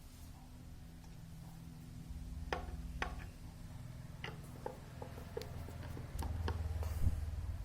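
A series of about a dozen light clicks and taps, starting a couple of seconds in and clustering toward the end, over a low steady hum.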